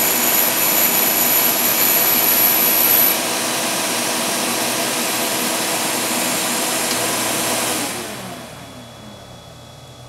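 Skate sharpener's small grinding wheel spinning at speed while it is dressed with a diamond tip to set the radius of hollow, with a high hiss over the first three seconds. Near the end the motor is switched off and spins down, its pitch falling.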